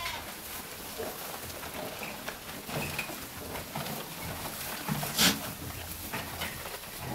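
Goats feeding on alfalfa at plastic feeders: scattered rustling and small knocks, with one sharp knock about five seconds in.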